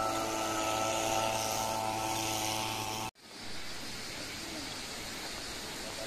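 An engine drones steadily at a constant pitch, then cuts off abruptly about three seconds in. A steady rushing noise follows.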